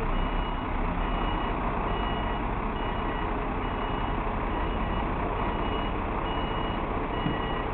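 Arm-roll (hook-lift) truck's reversing alarm beeping steadily, a little more than once a second, over the truck's running engine.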